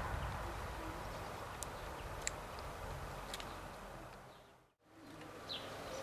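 Outdoor background ambience: a steady low rumble and hiss with a few brief, high chirps from small birds. Near the end the sound fades out to silence and comes back, followed by one short falling chirp.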